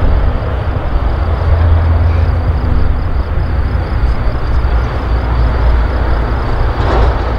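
Loud, steady roar of an easyJet Airbus A320-family jet airliner's engines as it rolls along the runway, the sound heaviest in the low rumble.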